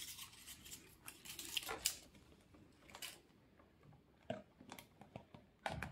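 Faint crinkling and clicking of a thin plastic water bottle being handled while side cutters work at its plastic label, with a few sharper clicks about four seconds in and near the end.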